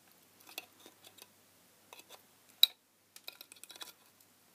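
Side cutters snipping and prying at the thin metal screw cap of a filament LED lamp, peeling it open: faint scattered metal clicks and scrapes, with one sharp click a little over halfway through and a quick run of small clicks after it.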